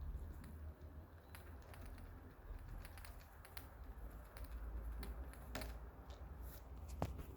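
Aftershokz Aeropex bone-conduction headphones rattling as they are moved: irregular light clicks, with a few sharper ones near the end, from a part come loose inside.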